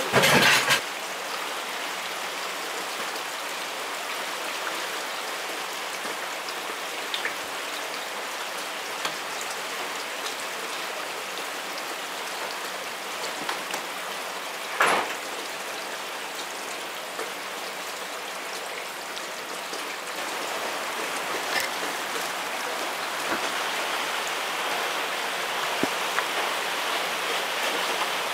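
Steady rain falling, an even hiss. A short, louder noise sounds right at the start and another about halfway through.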